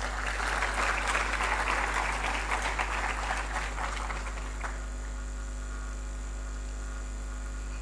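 Audience applauding for about four and a half seconds, then dying away, leaving a steady electrical hum.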